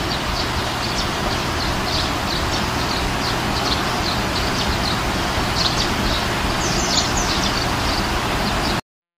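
Birds chirping in many quick, short calls over a steady background noise and a low hum. It all cuts off suddenly near the end.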